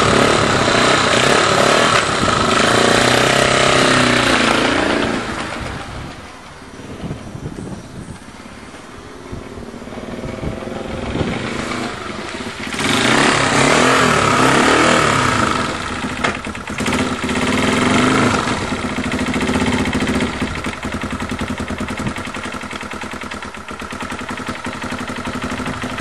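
Honda XL250's single-cylinder four-stroke engine running and revving on its first run after a timing-chain replacement. It is loud at first, falls away for several seconds, and comes back loud about 13 seconds in as the bike rides past, then runs on more evenly.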